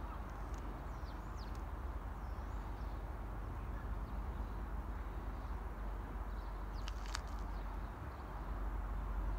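Steady low outdoor rumble that swells slightly near the end, with faint high bird chirps in the first two seconds and one brief sharp bird call about seven seconds in.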